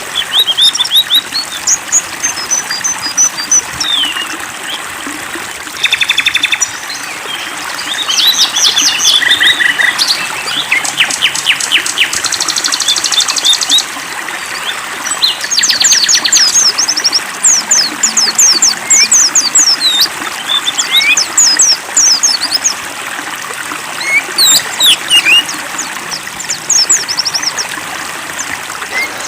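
Songbirds singing busily, with quick high chirps and several rapid trills, over a steady trickle of water.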